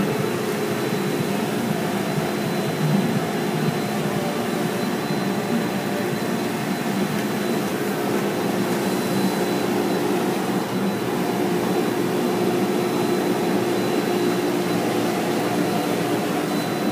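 Automatic car wash tunnel machinery running steadily, a constant mechanical hum with a faint high whine, heard through the viewing-window glass.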